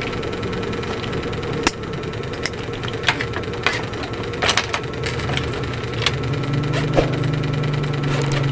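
Scattered light clicks and taps from hand work on a bag's zipper, over a steady background hiss; a low hum joins about six seconds in.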